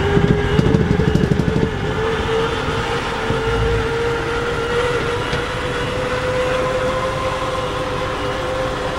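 Motorhome slide-out extension mechanism running, a steady whine that rises slowly in pitch as the room slides out, over the low rumble of the idling engine. The rumble pulses for the first couple of seconds, then evens out.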